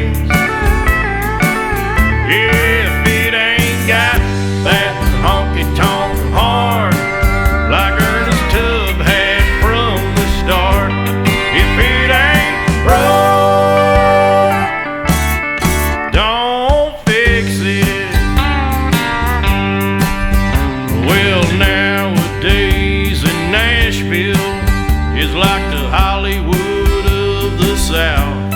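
Country song in an instrumental stretch: guitars over bass and drums with a steady beat, a lead line bending its notes, and a brief break about two-thirds of the way through.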